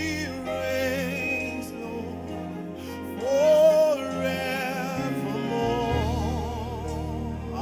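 Gospel worship song: a male lead singer holds long notes with vibrato over instrumental backing with a steady bass, his loudest held note about halfway through.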